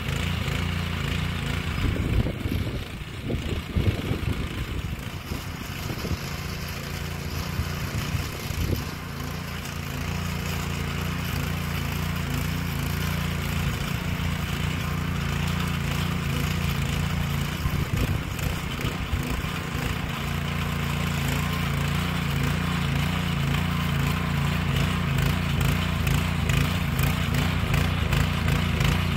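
Rotakt RO75RS 7 HP motor hoe's single-cylinder petrol engine running steadily under load while tilling. Its note is uneven in the first several seconds and then settles into an even drone.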